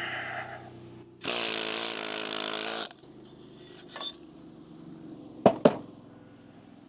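Lincoln Electric Weld Pak wire-feed welder laying a short bead: the arc sizzles steadily for almost two seconds, with a hum underneath, then stops. Two sharp metallic clicks follow close together near the end.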